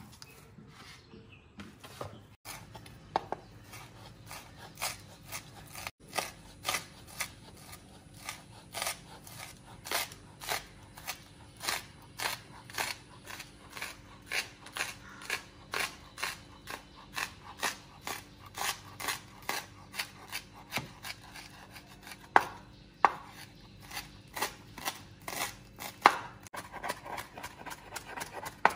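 Knife chopping food on a cutting board in a steady run of even strokes, about two to three a second.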